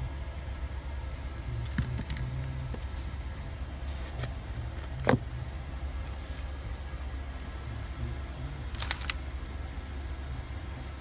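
A few light clicks and knocks from iPhone accessories and cardboard packaging being handled and set down on a desk. The loudest is a single sharp knock about five seconds in, all over a steady low hum.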